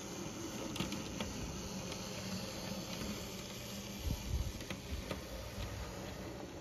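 HO scale model of a Melbourne D2 Class tram running along its track: a steady electric hum and hiss, with scattered light clicks. A few low thumps come about four seconds in.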